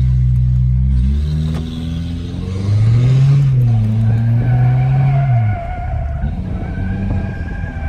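Pickup truck engine heard from inside the cab, revving up about three seconds in and dropping back a little past halfway, with a steady tire squeal from about four seconds in as the truck slides on the pavement.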